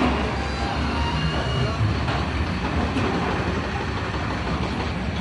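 Heavy diesel construction machinery running steadily, a continuous low rumble with no distinct strokes or changes.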